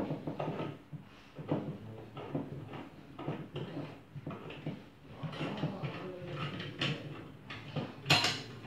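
Light clicks and knocks from handling a metal welding jig as a PVC waterstop strip is fitted into it and the clamp is worked, with a louder clack near the end.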